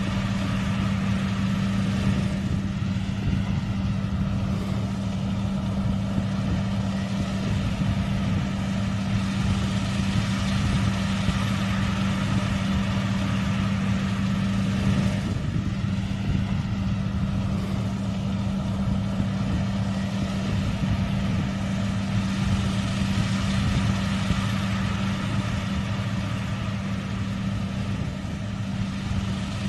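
Bakhsish 930 combine harvester's engine running at a steady speed, a constant low hum.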